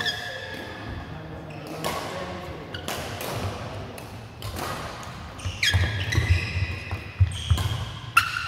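Doubles racket-sport rally in a sports hall: sharp racket hits about once a second, shoes squeaking on the court floor, and footsteps thudding.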